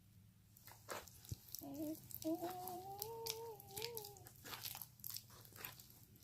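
Sticky slime being kneaded by hand: irregular wet popping and crackling clicks as it pulls apart and sticks. About a second and a half in, a soft, slightly wavering high voice hums for a couple of seconds.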